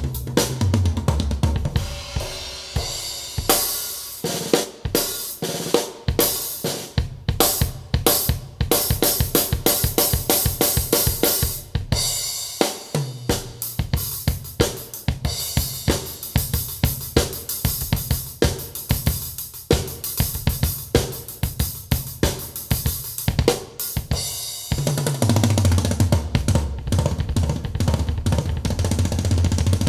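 Drum-kit music (kick, snare, cymbals) played back through a woofer driver whose surround was patched with layers of tissue paper; the uploader thinks the repaired driver still has problems. A steady beat throughout, with a heavier sustained bass line coming in about 25 seconds in.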